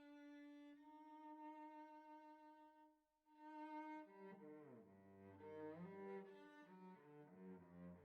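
Faint bowed-string music: a long held note, then from about four seconds in several lines sliding between notes together.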